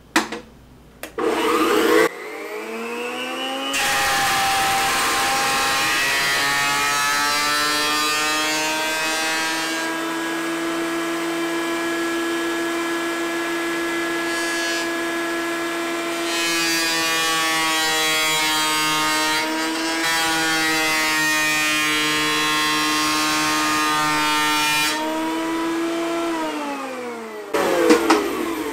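Benchtop jointer switched on, its motor and cutterhead whining up to speed, then taking a face-flattening pass on a bowed board. The cutting noise sounds over the steady whine and eases through the middle of the pass, where the board's low middle is not touching the knives. Near the end the machine is switched off and winds down with a falling whine.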